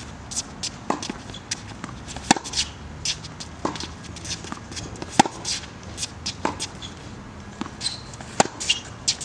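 Tennis rally on a hard court: racket strings popping on the ball about every one and a half seconds, three loud hits from the near racket about three seconds apart with fainter returns from across the net in between. Short shoe squeaks and scuffs on the court fill the gaps.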